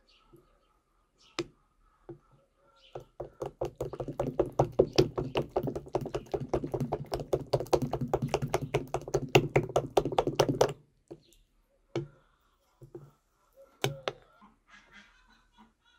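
A utensil beating thin batter in a glass bowl: rapid, rhythmic clinking and tapping against the glass for about eight seconds in the middle, with a few single taps before and after.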